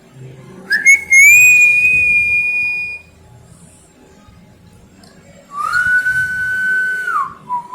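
Two long, steady whistled notes. The first is high and slides up into place about a second in. The second is lower, starts about five and a half seconds in, and slides down at its end.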